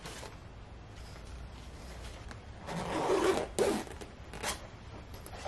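An invisible zipper in a fabric sofa slipcover being pulled along its seam: a rasping zip of about a second, starting a little before halfway, broken once briefly, then a shorter rasp about a second later.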